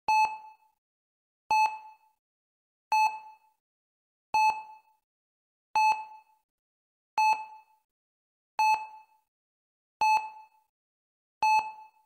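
Hospital heart rate monitor beeping steadily, one short high beep about every second and a half, nine beeps in all, each fading quickly.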